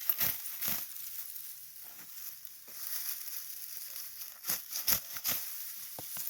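Irregular dry rustling and crunching, with a few sharper crisp strokes over a steady high hiss.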